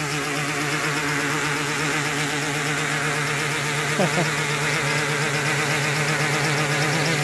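Home-built quadcopter hovering: four Multistar 4108 480Kv brushless motors spinning 13-inch carbon-fibre props in a steady, loud hum whose pitch wavers quickly as the motors keep correcting a shaky hover. The builder suspects too much play, probably in the loose bearings the arms ride on. A brief falling tone sounds about four seconds in.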